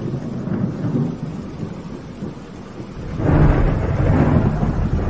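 Thunderstorm: rolling thunder rumbling over rain, with a louder roll of thunder starting about three seconds in.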